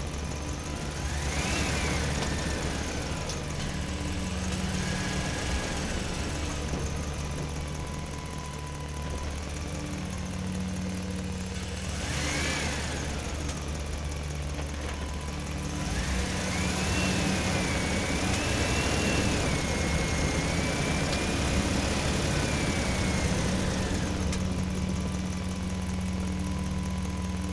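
Excavator's diesel engine running steadily, with a high whine that rises and falls three times as it works; the third rise is held for several seconds.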